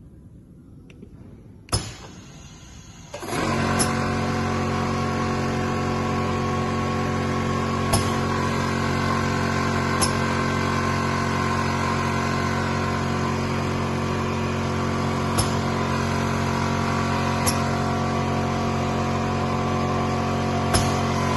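Haffner DGS 187 double mitre saw's 3 kW electric saw motors switching on about three seconds in and then running steadily with an even hum and whine, the blades spinning free with no cut. A sharp click comes just before the start-up, and a few more clicks fall over the running motors.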